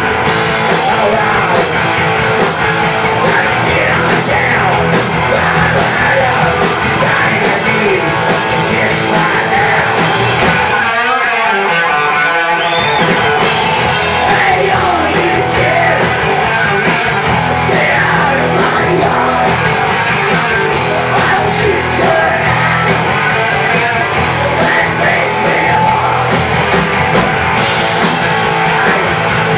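Loud live hard rock band: distorted electric guitars, bass and drums, with shouted vocals. About eleven seconds in, the bass and drums drop away for a couple of seconds under a wavering guitar line, then the full band comes back.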